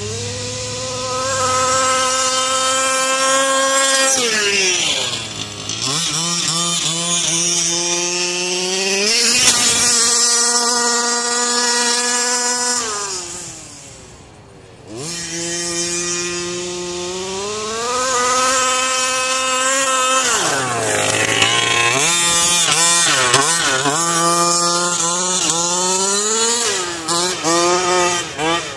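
Rovan LT305 RC truck's small two-stroke petrol engine revving up and down as it drives, its pitch rising and falling with the throttle. It drops to a quiet low lull about halfway through, comes back up sharply, and ends in quick on-off throttle blips.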